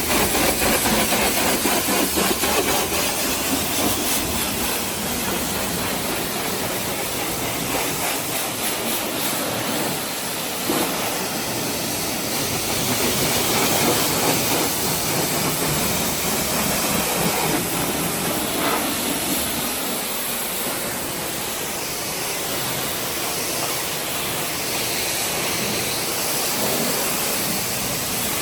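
Pressure washer spraying water onto a car: a loud, steady hiss of the jet and spray.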